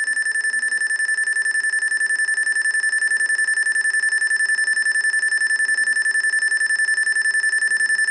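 IBM ThinkPad 600E's built-in speaker giving one long, unbroken high-pitched beep during its power-on self-test. It is a POST error alarm, which the owner puts down to a keyboard error from a stuck key.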